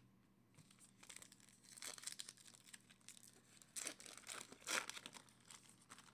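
The foil wrapper of a Panini Contenders basketball card pack being torn open and crinkled by hand. It gives a run of irregular crinkling rustles from about a second in, loudest near the end.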